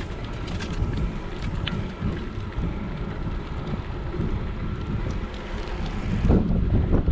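Wind buffeting the microphone of a GoPro action camera on a moving bicycle: a steady low rumble that surges louder about six seconds in.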